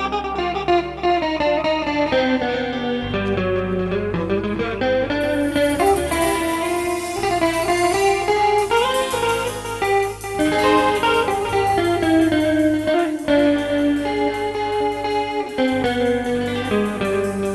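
Live band playing an instrumental introduction: an electric guitar plays the lead melody over a steady bass line.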